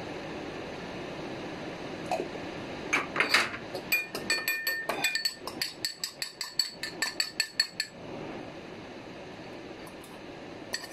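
Metal utensil clinking and scraping against a small ceramic bowl: a quick run of clinks, several a second with a ringing note, for about five seconds, starting about three seconds in.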